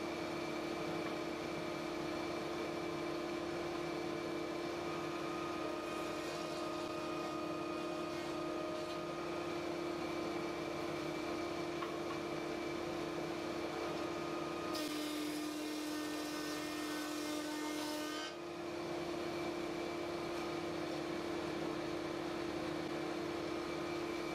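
Benchtop thickness planer (thicknesser) running with a steady hum. About fifteen seconds in, a board feeds through for roughly three and a half seconds: the motor's pitch drops under the load and the cutter head adds a rough cutting noise, then the hum returns to its unloaded pitch.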